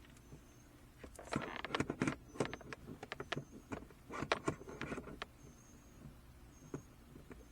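Handling noise: clusters of small clicks, taps and rustles from plastic parts and a cable being fitted, busiest in the first half.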